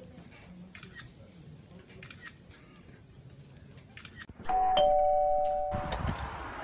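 Faint scattered clicks in a quiet room, then about four and a half seconds in a two-tone doorbell chime sounds, ding-dong, its two steady notes held for about a second and a half before a rush of noise.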